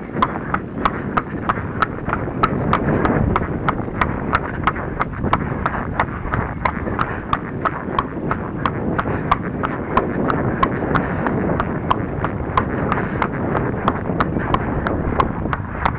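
A ridden horse's hooves clip-clopping on a tarmac lane in a steady, even rhythm of sharp clicks, about three a second.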